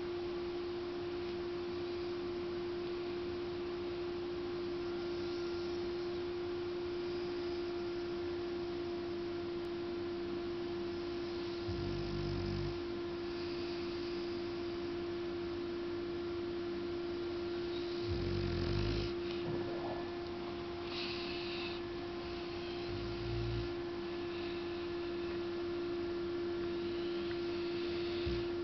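English bulldog snoring in its sleep: three short, low snores about twelve, eighteen and twenty-three seconds in, with faint breathy sounds between. A steady humming tone runs underneath and is the loudest thing throughout.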